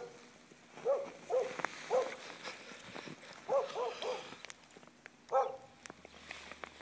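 A dog barking: about six short barks in irregular groups of two or three.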